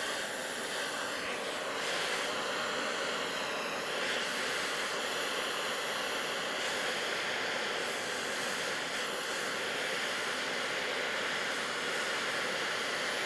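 Hand-held gas torch burning with a steady hiss, its flame played on the rim of an aluminum wheel to preheat the metal before TIG welding.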